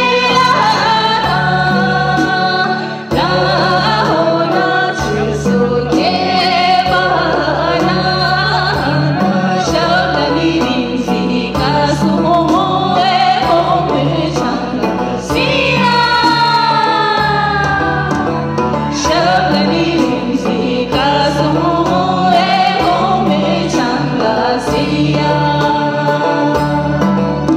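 A woman singing a song into a microphone over instrumental accompaniment, amplified through a sound system, with long held and gliding notes.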